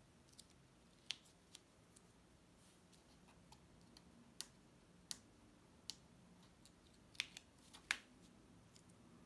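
Fingernail picking at and peeling the thin backing film off a sand-art board, making about ten sharp, scattered clicks over a quiet room, the loudest near the end.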